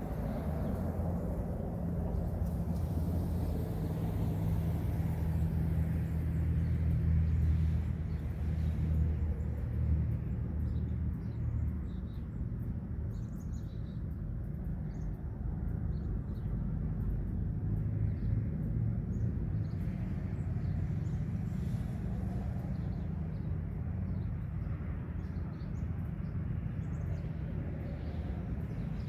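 Outdoor ambience: a vehicle engine rumbles past, loudest about seven seconds in, then a steady low rumble with small birds chirping now and then.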